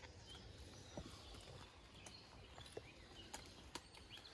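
Near silence: faint woodland background with a few scattered light clicks, a metal fork tapping and scraping on an enamel camping plate while eating.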